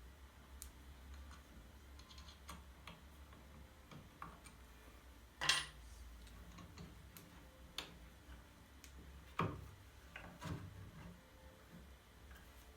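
Scattered light clicks and taps from handling tools and wood at a workbench, the loudest about five and a half seconds in, over a low steady hum.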